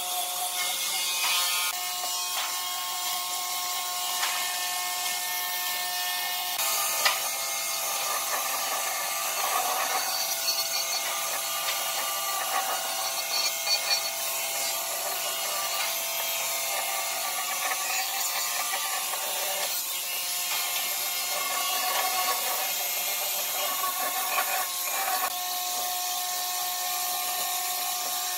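Electric woodworking power tool running steadily on wood with a whine, and a few sharp knocks.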